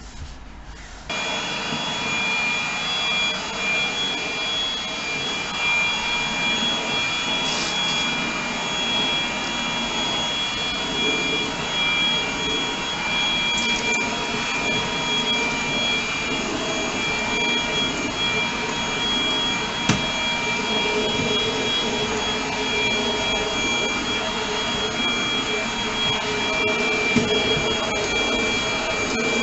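Bush 25.2V cordless stick vacuum cleaner with a 150W DC motor, switched on about a second in and then running steadily with a high whine over a rushing air noise, its sound shifting slightly as it is moved over the floor.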